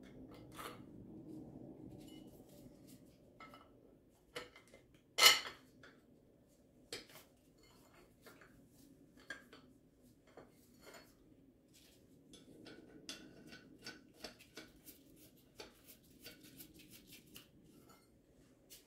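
Steel parts clinking and clattering by hand as a bolt and bracket are fitted to a lower control arm's bushing, with one louder metal clank about five seconds in and a run of quick light clicks in the second half.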